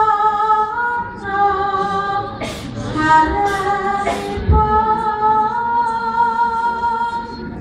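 A woman singing a Javanese palaran tembang solo into a microphone: long held notes with slow, ornamented turns, sung in phrases with short breaks between them.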